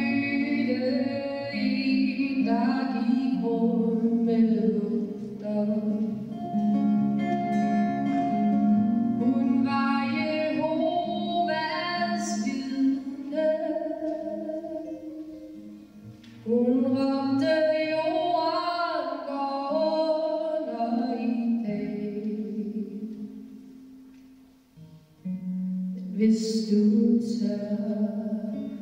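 A woman singing live to her own acoustic guitar, in held, sustained phrases over strummed chords. The music drops away briefly about two-thirds of the way through, then resumes.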